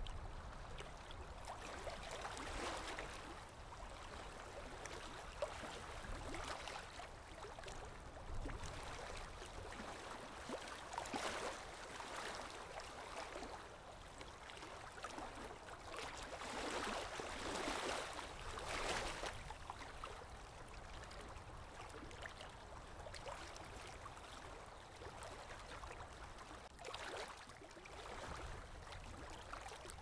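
Lake water lapping gently, with soft swells every few seconds.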